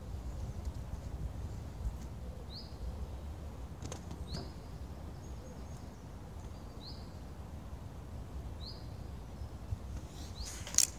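A bird calling with short rising chirps, about one every two seconds, over a steady low outdoor rumble. Near the end comes a single sharp clack of inline skates close by.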